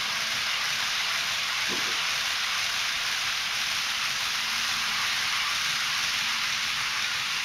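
N-gauge model Shinkansen trains running on the layout's track, heard as a steady, even hiss of small wheels on rail and model motors.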